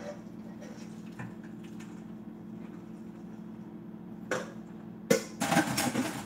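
A cooking pot being handled at the kitchen sink: a single knock about four seconds in, then a second of loud metallic clattering near the end, over a steady low hum.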